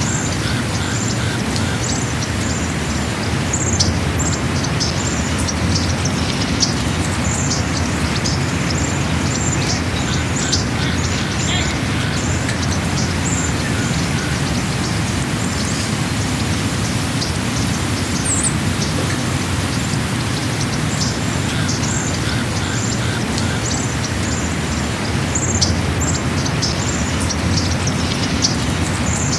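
Birds chirping, many short high calls one after another, over a steady low rumble. A lower repeated call is heard three times, at the start, around ten seconds in and around twenty-two seconds in.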